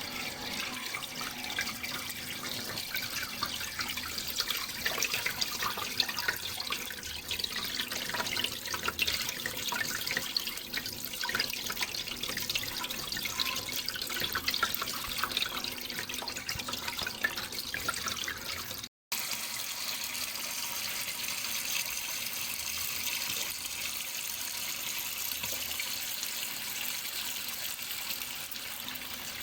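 Running water splashing and trickling steadily, with many small droplet splashes, broken by a split-second dropout about two-thirds of the way through.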